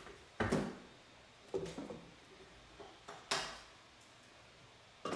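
Four or five short clunks of kitchenware being handled at the counter: a metal saucepan and a glass jar knocking as they are set down and moved.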